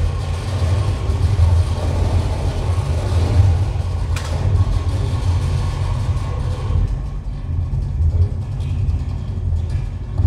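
Amplified noise from a homemade instrument of coil springs and metal strips worked by hand: a dense, steady low rumble with hiss above it and a sharp click about four seconds in.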